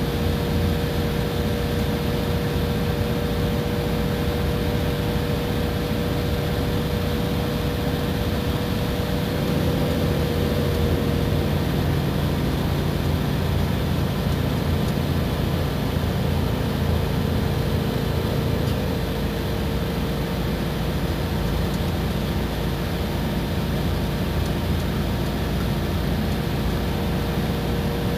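Iveco Crossway bus's diesel engine running steadily under way, heard as a constant low drone from inside the bus, with a steady whine on top that shifts slightly in pitch about ten seconds in and again near twenty seconds.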